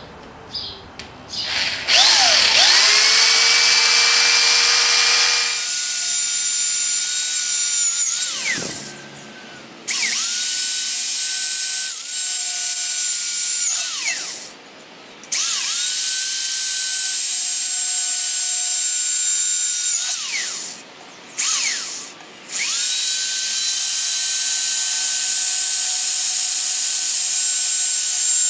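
Power drill with a small twist bit drilling pilot holes through 16-gauge steel plate: the motor whine winds up, runs steady for several seconds while the bit cuts, then winds down, four times with short pauses between.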